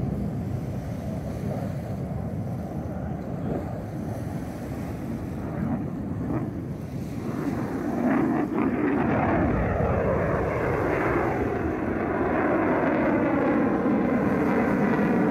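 Wind on the microphone and lapping lake water, then, from about eight seconds in, the louder engine noise of an F-35 fighter jet's single afterburning turbofan, its pitch gliding as it flies past overhead.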